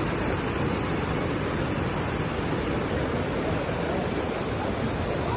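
Floodwater flowing fast and turbulent across a paved road, a steady, unbroken rush of water.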